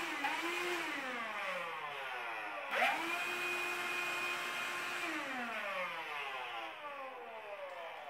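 CLEANmaxx cordless cyclone handheld vacuum, fitted with its small upholstery nozzle, switched on in short bursts. The motor whine cuts off less than a second in and winds down falling in pitch. It starts again about three seconds in, runs steadily for about two seconds, then is switched off and spins down with a falling whine.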